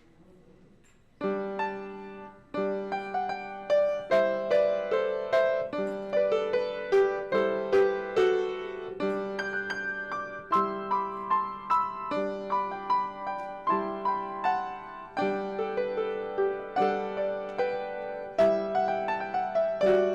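Piano playing. It comes in about a second in after near quiet, with a repeated low note under chords of struck, fading notes.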